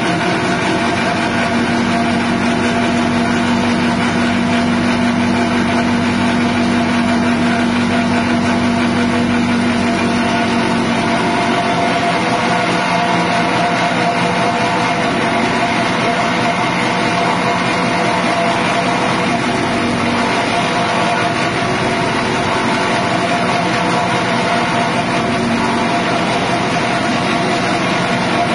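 Small 6.5 hp petrol engine driving a grass chopper, running steadily at an even speed.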